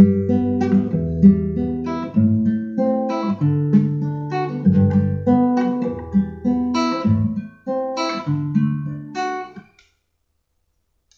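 Classical nylon-string guitar fingerpicked: the thumb alternates bass notes under the index, middle and ring fingers on the top three strings, playing a G–Em–Am–D progression two chords to a bar. The picking stops shortly before the end.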